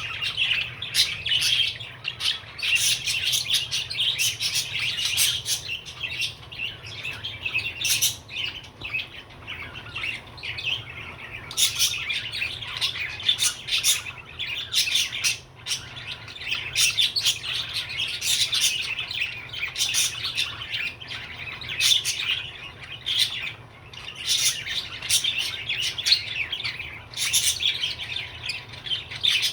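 Pet budgerigar chattering in a continuous warble, with many short sharp chirps mixed in.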